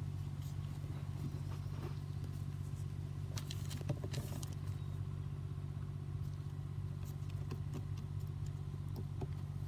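A motor running steadily with an even low hum, with a few faint rustles and taps from wet fish skins being smoothed out on newspaper.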